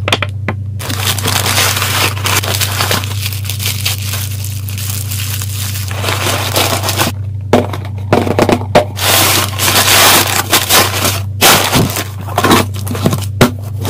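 Packaging being handled and crinkled, a dense run of crackling and rustling that gets choppier and busier about halfway through, over a steady low electrical hum.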